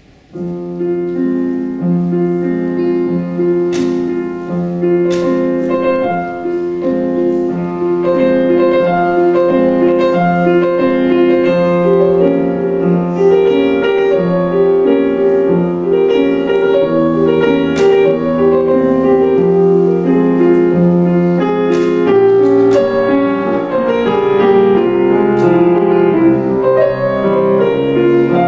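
Yamaha grand piano played four hands, a classical piece beginning with a repeated pattern of chords. It grows louder about eight seconds in, and deeper bass notes join near the end.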